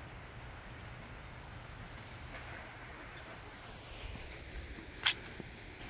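Quiet outdoor ambience with a low steady rumble and one sharp click about five seconds in.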